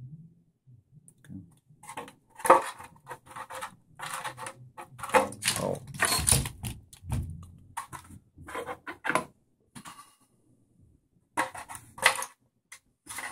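A thin, clear polycarbonate RC car body shell being handled and flexed, crinkling and crackling irregularly.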